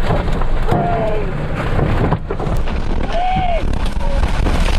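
Heavy rain and wind hitting a storm chaser's vehicle caught in a tornado, over a loud, deep, steady rumble.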